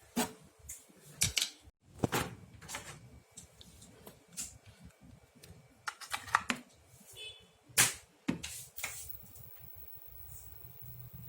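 Irregular sharp clicks and knocks of hard objects being handled, about ten in all, the loudest about eight seconds in. A faint steady high-pitched whine comes in near the end.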